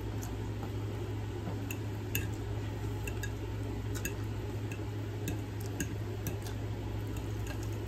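A metal fork clicking and scraping against a ceramic dinner plate while someone eats, in scattered light ticks. A steady low hum runs underneath.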